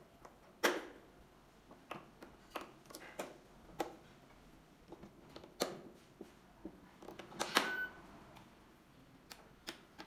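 Scattered plastic clicks and knocks of batteries being pressed into a smart door lock's battery compartment as it is powered up to test it. About three-quarters of the way through, the lock gives a short electronic beep.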